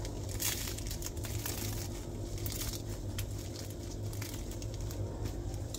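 Crisp, flaky crust of a freshly baked layered börek crackling and tearing as hands pull it apart, in many small scattered crackles. The crackling is the sign of crisp, flaking layers.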